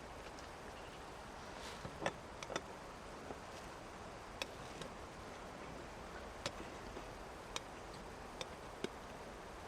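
Steady hiss of rain and running river water, with about eight sharp ticks at irregular intervals, like drops landing on a hard surface.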